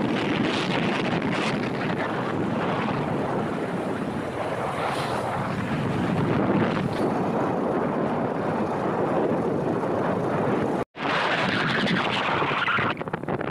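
Wind buffeting the microphone, with the rumble of a moving vehicle, steady and loud. A little before the end it cuts out for an instant and comes back with a brighter hiss.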